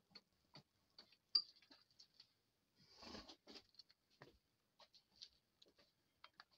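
Faint scattered clicks and pops of broth bubbling in an enamelled cast-iron Dutch oven as a wooden spoon stirs it, with a brief rustle of stirring about three seconds in.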